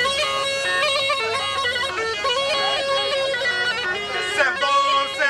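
Tulum, the Black Sea bagpipe, playing a lively horon dance tune: a steady held note under a quick, ornamented melody.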